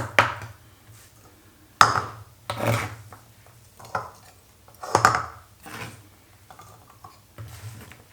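Diced apple being scraped off a cutting board with a knife and dropped into a measuring cup: a handful of separate knocks and scrapes, the loudest about two and five seconds in.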